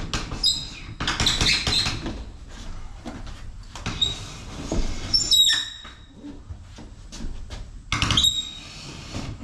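Several short, high squeaks with scraping and knocks as a heavy glass panel is pivoted and shifted into its opening.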